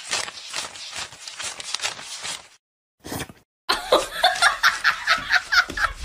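Person laughing in quick repeated bursts, breathy at first, then higher and more pitched after a short break about three seconds in.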